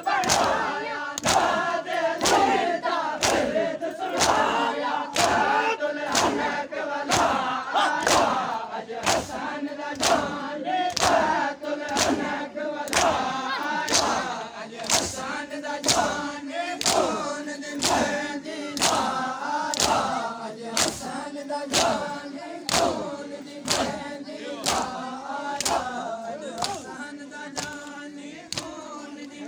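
A crowd of men chanting a Muharram lament (noha) together while beating their chests in unison (matam). Sharp slaps land together about once a second over the chanting.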